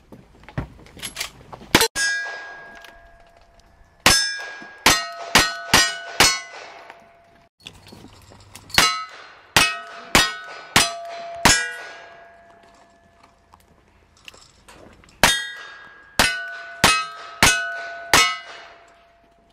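Revolver shots in three quick strings of five, a few seconds apart, with a single shot about two seconds in. Each shot is followed at once by the ringing clang of a hit steel target.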